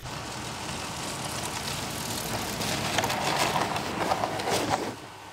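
Electric snowmobile driving past with no engine sound: a steady hiss and rumble of its track and skis over snow, growing louder as it comes close, then stopping abruptly near the end.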